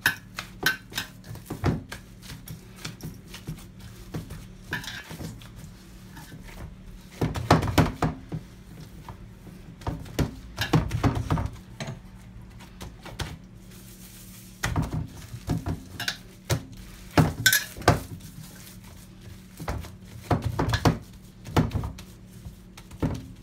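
Gloved hands patting and pressing a soft besan (gram flour) roti dough flat in a stainless steel bowl: clusters of slaps and thumps with the odd metallic clink of the bowl, over a steady low hum.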